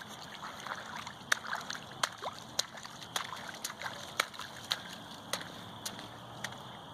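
Footsteps splashing through a shallow puddle, about two wet steps a second.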